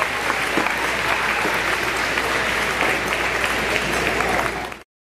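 Audience applauding, a dense steady clatter of many hands clapping that cuts off abruptly near the end.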